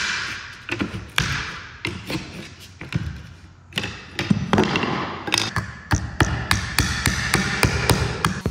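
Claw hammer knocking apart a cedar plank sign: a run of irregular knocks of steel on wood as the boards and battens are struck loose.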